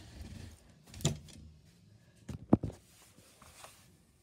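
Rustling and a few short knocks from a toy doll stroller being handled and turned around, its metal-tube frame bumping. The sharpest knock comes about two and a half seconds in.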